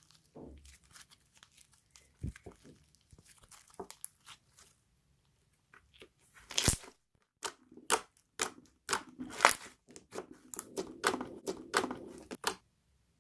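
Slime being squished and pressed by hand, giving sticky crackles and pops. They are scattered at first, come thicker and louder in the second half, and stop just before the end.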